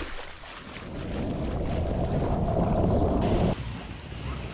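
Muffled rushing of water and bubbles heard through an underwater camera, a steady low roar that cuts off suddenly about three and a half seconds in. Quieter wind and waves from the sea surface follow.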